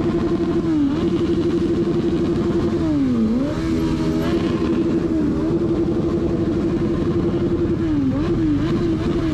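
Motorcycle engine held at high, steady revs. The pitch briefly drops and climbs back to the same level about a second in, around three seconds in, around five seconds in, and several times in quick succession near the end.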